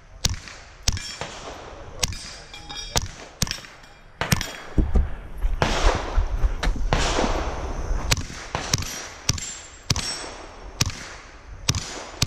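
Beretta 87 Target .22 LR pistol firing a string of shots at steel plates, roughly two a second. About five seconds in the shots stop for a few seconds of rustling noise as the shooter moves to the next barricade, then another quick string follows.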